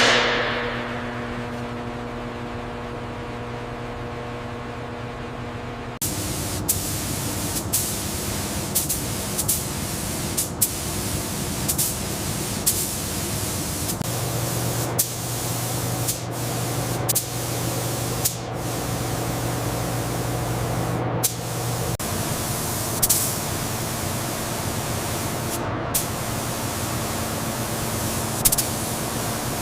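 A sharp clank at the start over a steady machine hum. About six seconds in, a loud steady hiss of spray begins, broken by frequent brief clicks, and runs on over the hum.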